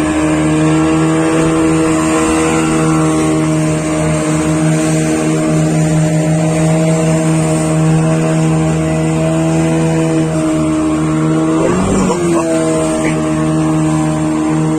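Outboard motor of an open fishing boat running steadily at cruising speed, with a brief dip in pitch and a burst of noise near the end.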